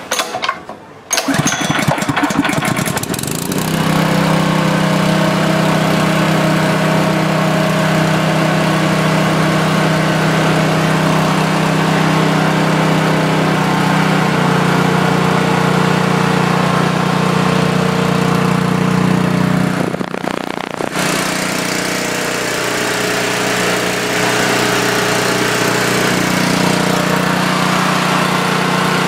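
Honda GX200 single-cylinder four-stroke engine of a long-tail mud motor, pull-started and catching about a second in, then running steadily. About 20 seconds in it briefly drops in speed and loudness, then picks up again.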